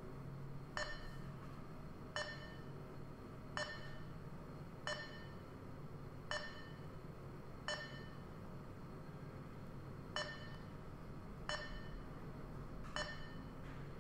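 Short electronic pings, about ten in all, coming roughly every second and a half with one longer gap near the middle: each marks a probe touch point being registered as the coordinate measuring machine runs its inspection program. A low steady hum lies underneath.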